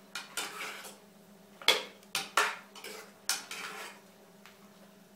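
A spoon scraping and knocking against the inside of an enamel cooking pot in several irregular strokes as cabbage is stirred into a thick sauce, over a faint steady hum.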